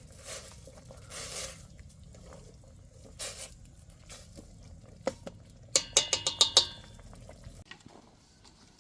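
Dishes and utensils clinking and being handled, with rustling and scattered knocks, then a quick run of sharp, ringing clinks about six seconds in.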